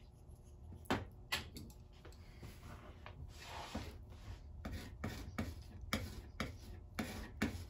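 Paintbrush working acrylic paint: soft rubbing strokes and a series of light taps and clicks, which come more often in the second half.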